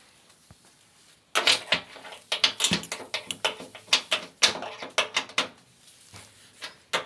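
Rapid, irregular clicking and knocking from parts of a front-loading washing machine being handled, starting about a second in and easing off after about five seconds.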